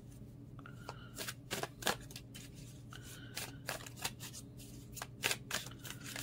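A deck of tarot cards being shuffled and handled by hand: a run of irregular crisp card clicks and flaps, getting busier about a second in.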